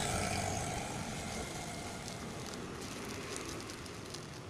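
Plastic courier mailer crinkling and rustling as it is torn open and pulled apart by hand, loudest in the first second.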